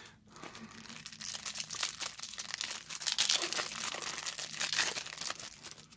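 Crinkling and rustling from handling a trading-card booster pack: the foil wrapper and the cards being shuffled through by hand, a dense run of small crackles.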